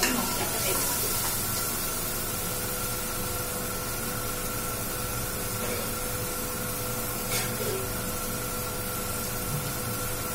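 Onion-tomato masala sizzling steadily in an aluminium pressure-cooker pot on a high gas flame. A metal spatula scrapes the pot briefly at the start, and a faint steady tone runs beneath the sizzle.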